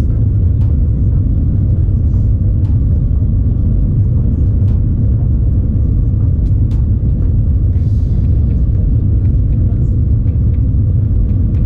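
Steady low rumble inside a Shanghai Maglev train running at speed, with a few faint scattered ticks.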